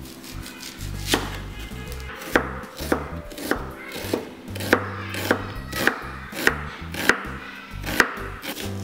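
Chef's knife slicing through a white onion on a wooden cutting board: about a dozen sharp knocks of the blade on the board, one roughly every half second, starting about a second in.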